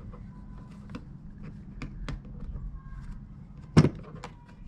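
Scattered plastic clicks and taps from handling the access door of a Ryobi inverter generator, whose latch knob is broken, with one loud knock a little under four seconds in.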